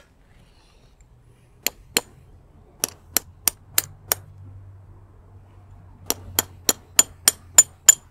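A hammer tapping the nut of a 12 × 75 mm steel sleeve anchor bolt to drive it fully into a drilled hole in rock, fourteen sharp metallic strikes with a short ring in three runs of about three a second, the last run the loudest. The anchor is being seated all the way in before its nut is tightened.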